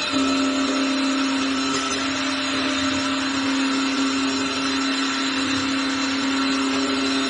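Automatic tool-change CNC lathe running: a steady motor whine over an even hiss.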